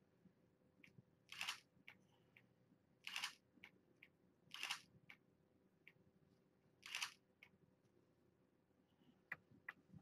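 Digital SLR camera shutter firing four times, single frames about one and a half to two seconds apart, each a short crisp clack. Faint small ticks between, and two sharper ticks near the end.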